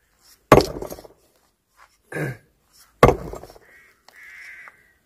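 Sledgehammer striking rocks to break them up: two sharp blows about two and a half seconds apart, each trailing off briefly.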